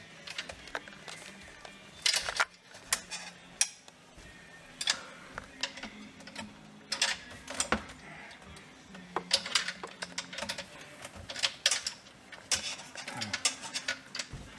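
Irregular clicks and knocks of hard plastic parts being handled inside a refrigerator, a few louder taps among many light ones, over faint low background music.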